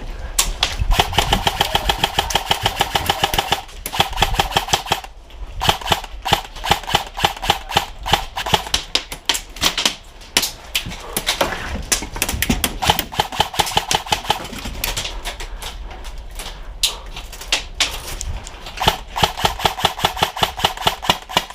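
Airsoft rifle firing on full auto in several long bursts of rapid, evenly spaced shots with a whirring tone under them. The longest bursts come near the start and near the end, with shorter bursts and scattered shots between.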